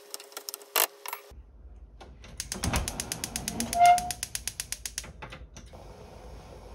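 A wooden spatula scrapes and stirs a thick stir-fry in a nonstick wok with quick ticks. Then a gas stove's igniter clicks rapidly, about eight clicks a second for a couple of seconds, with a brief ring near the middle. After that the burner runs with a low, steady sound.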